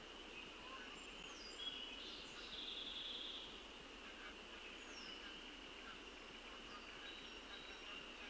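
Faint dawn ambience: a steady high-pitched chorus with scattered short down-slurred bird whistles and one brief buzzy bird trill about two and a half seconds in, the loudest moment.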